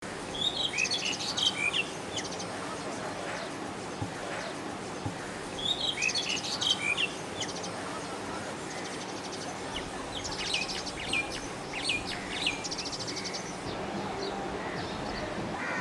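Asian pied starling song: bursts of fast chattering rattles mixed with short whistled notes, repeated every few seconds.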